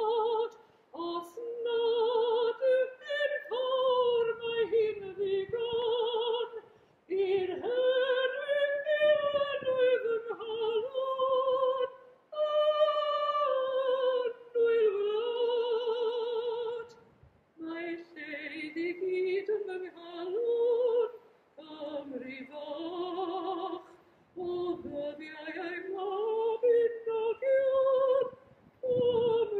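A woman singing solo and unaccompanied in an operatic style, with a wide vibrato on long held notes. The singing comes in phrases of a few seconds each, with short breaths between them.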